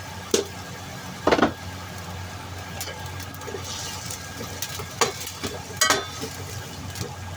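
Stir-frying carrot and baby corn in a pan: a utensil clatters against the pan a few times, the longest just over a second in and two more around five and six seconds, over a steady low hum.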